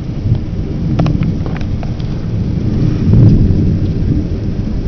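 Heavy thunderstorm: steady pouring rain with thunder rumbling, the rumble swelling loudest about three seconds in, and a few sharp raindrop ticks.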